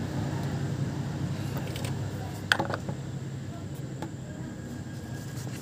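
A new Daihatsu oil filter being screwed on by hand, with one sharp click about halfway through, over a steady low hum.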